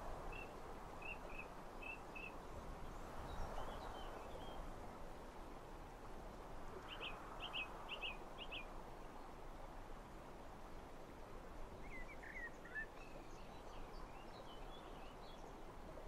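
Small songbirds chirping in short runs of quick high notes over a steady rush of wind. A sharper group of about five notes comes about seven seconds in, and a few falling notes follow later.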